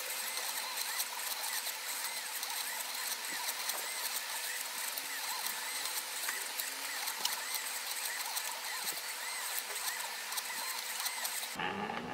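Stepper motors of small homemade GRBL pen plotters running as they draw curves: a whine that keeps rising and falling in pitch with the pen's speed. Near the end it drops to a lower whine that still swoops up and down.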